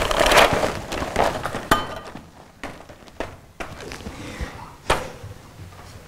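Plastic packaging rustling and crinkling as it is handled, loudest in the first second and a half, then a few sharp knocks and thuds.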